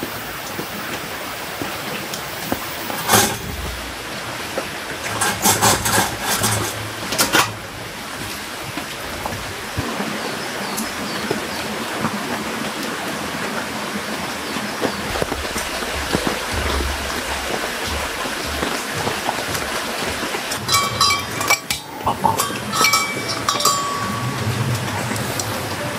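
Steady rain falling on the tent, with scattered metallic clinks and knocks of camping gear being handled: one about three seconds in, a cluster about five to seven seconds in, and another with brief ringing about twenty-one to twenty-four seconds in.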